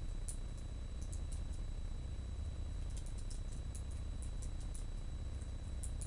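Typing with long fingernails on a laptop keyboard: light, irregular key clicks in short flurries, over a steady low hum.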